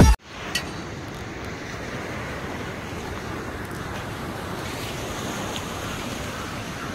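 Sea surf breaking and washing up a sandy beach, a steady rushing wash.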